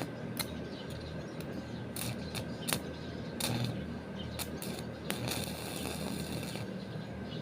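Scattered small clicks and knocks of hard objects being handled, with a stretch of scraping about five seconds in, over a steady faint hum.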